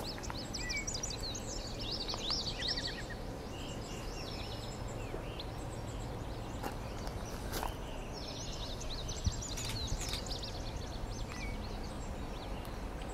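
Songbirds chirping and trilling in several quick bouts over a faint, steady low rumble of outdoor background noise.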